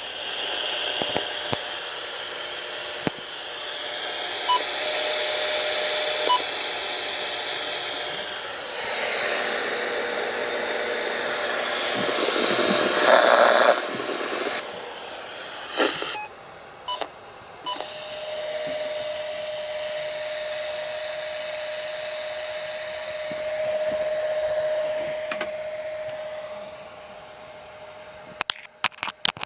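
Weather radio receiver hissing with static on a transmitter carrying dead air, no programme audio, with scattered sharp clicks and crackles. The hiss swells louder about halfway through, and a faint steady tone sits under it in the second half.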